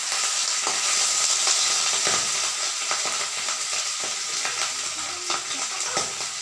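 Pabda fish frying in hot oil in a kadai: a steady sizzle with scattered sharp crackles and spits.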